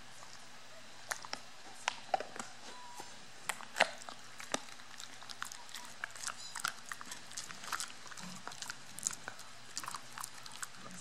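A dog gnawing a rawhide chew: irregular crunches and clicks of teeth on the hide, the sharpest about four seconds in.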